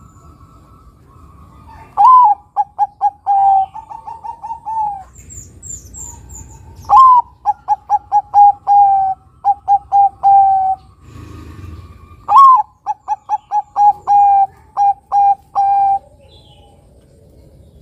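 Zebra dove (perkutut), a Bangkok-crossed male, singing its cooing song three times. Each phrase opens with a loud rising note and runs on into a quick string of short, clipped coos. A few faint high chirps from another small bird come between the first and second phrases.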